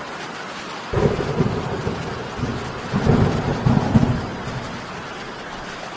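Thunderstorm: a steady hiss of rain with rolling thunder, one rumble building about a second in and a longer one around three to four seconds in.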